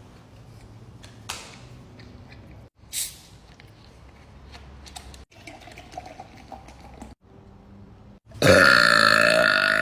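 Faint room noise and a few brief small noises broken by abrupt cuts, then about eight seconds in a girl lets out a long, loud burp that carries on to the end.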